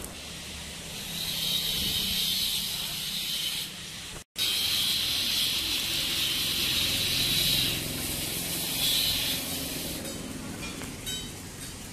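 Stick (arc) welding on a steel tube railing: the arc burns with a steady high hiss in three runs, two of a few seconds each and a short one near the end, with a brief cut-out of all sound a little past four seconds.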